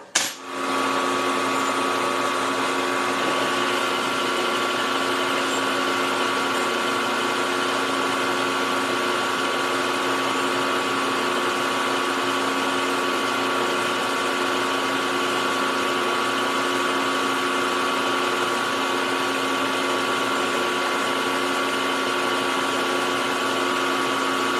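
Milling machine starting up with a click, then running steadily with an offset boring head turning in the spindle, boring out a hole in a steel plate: a steady motor and gear whine over a hiss.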